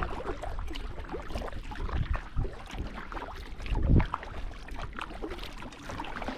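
Small paddled boat on the water: water splashing and scattered knocks against the hull, with a louder knock about four seconds in.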